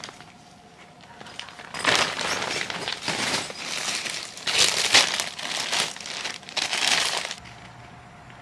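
Stiff clear plastic tent-window sheet (urethane) crinkling and rustling in several loud bursts as it is handled, starting about two seconds in and stopping shortly before the end.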